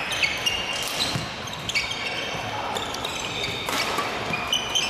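Badminton doubles rally: repeated sharp smacks of rackets hitting the shuttlecock and court shoes squeaking on the gym floor.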